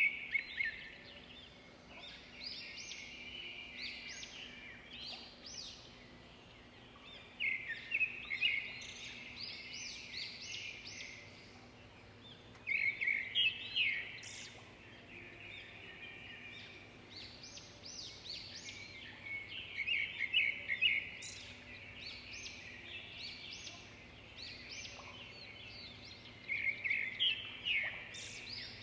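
Small birds chirping and singing: bursts of rapid high chirps recur about every six seconds, with quieter calls between them, over a faint steady low hum.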